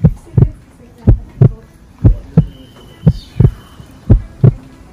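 Heartbeat sound effect: paired lub-dub thumps, a steady slow pulse of about one beat a second.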